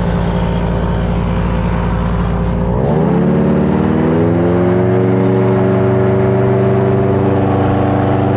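Paramotor engine driving an air boat's propeller, fitted with an added air cleaner. It runs at a steady note, then is throttled up about three seconds in: the pitch rises over the next two seconds and holds at a higher steady note as the boat gets under way.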